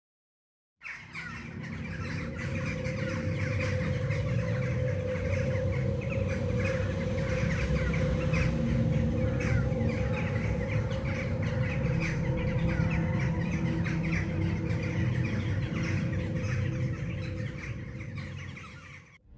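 A flock of birds squawking and calling, crow-like, over a steady low drone. It fades in about a second in and fades out near the end.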